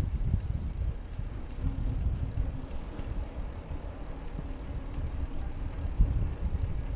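Bicycle rolling along a paved sidewalk, heard from a handlebar-mounted action camera: a steady low, gusty rumble of tyre and wind noise on the microphone, with a few faint light ticks and a faint steady hum joining about a second and a half in.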